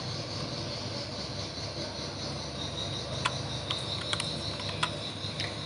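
A few light computer keyboard key clicks, scattered over the second half, as a new line is typed into a text file, over a steady background hiss.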